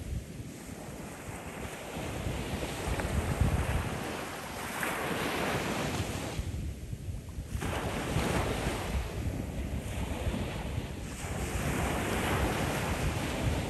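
Ocean waves breaking and washing up the shoreline, a steady hiss that swells and eases every few seconds, with wind buffeting the microphone.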